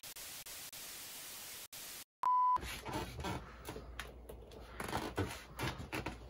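Television static hiss for about two seconds, cutting out abruptly. Then a short, steady, single-pitched beep, followed by irregular clicks and rustling handling noises.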